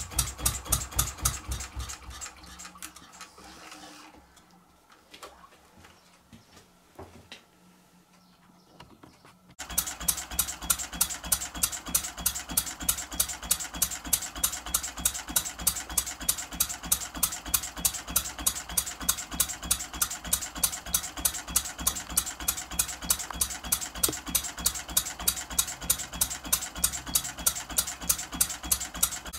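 Small single-cylinder model true diesel engine (20 mm bore, 40 mm stroke) running with a rapid, even knock. Unclamped and bumping around on the bench, its beat dies away over the first few seconds to near silence. About ten seconds in it is abruptly running steadily again.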